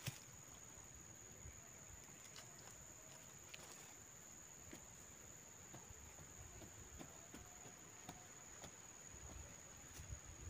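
Near silence: faint scattered ticks and scrapes of a wooden stick jabbing planting holes in dry garden soil, over a steady high-pitched tone.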